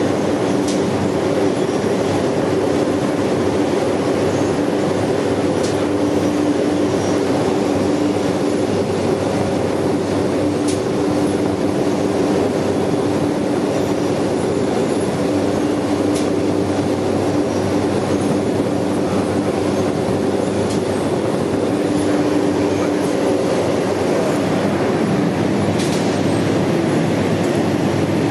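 Braised egg production line running: the steady noise of its conveyor and machinery, with a low hum that swells and fades and a few faint ticks.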